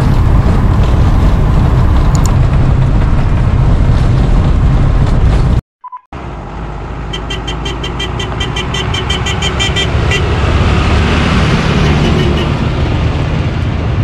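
Road vehicle driving, a steady heavy rumble of engine and road noise. It cuts off abruptly about six seconds in, then a quieter drive noise builds up again, with a fast, light ticking for several seconds in the middle.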